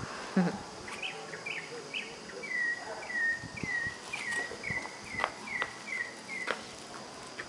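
A bird calling a steady series of a dozen or so short chirps, each a quick hooked note at the same pitch, about three a second. A few sharp clicks sound near the end.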